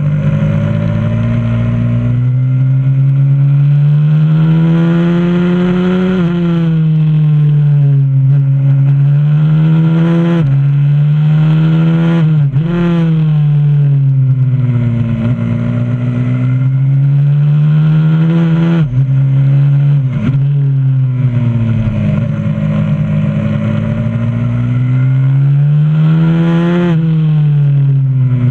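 125cc supermoto pit bike's single-cylinder four-stroke engine at full race pace, heard from a camera mounted on the bike. The engine pitch climbs steadily under throttle and drops sharply about six times as the rider shifts or backs off for corners, with gentler falls in between.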